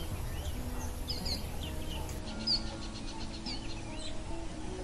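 Small birds chirping repeatedly over soft background music with long held low notes.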